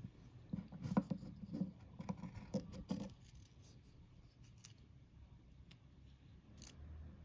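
Handling noise from fingers working fishing line through the eye of a clear plastic lure while tying a knot: irregular rustling and small clicks for the first three seconds or so, then only faint scattered ticks.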